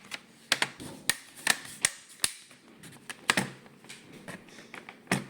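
Plastic screen bezel of a Dell Inspiron 3585 laptop being pressed onto the lid, its retaining clips snapping into place with a series of sharp, irregular clicks.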